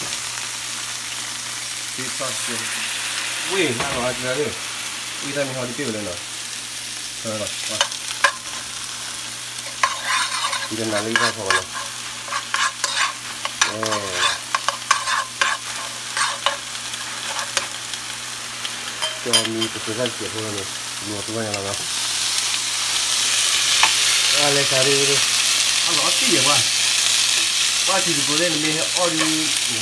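Chopped garlic and ginger frying with sauce in a nonstick pan, stirred with a utensil that clicks and scrapes against the pan over a steady sizzle. The sizzle grows louder about two-thirds of the way through.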